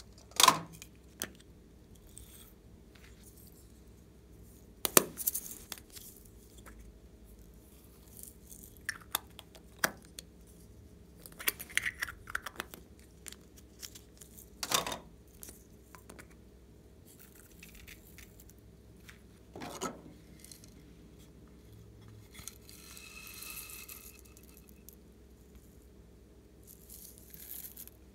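Scattered sharp clicks and taps of small plastic toy containers being opened and handled over a glass dish, with glitter, beads and sequins shaken out onto slime; a short soft rattle about two-thirds of the way through.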